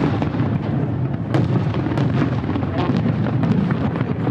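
Fireworks display going off continuously: a dense low rumble of bursts with sharp cracks on top, the sharpest a little over a second in and another at about two seconds.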